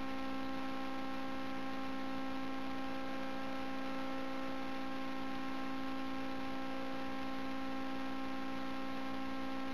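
A steady hum of several fixed tones over a soft hiss.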